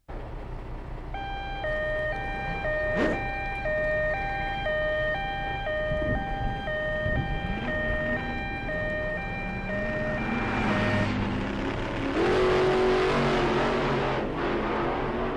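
Two-tone emergency-vehicle siren alternating between a high and a low note, each held about half a second, over steady traffic noise. The siren stops about eleven seconds in, and the traffic noise swells near the end.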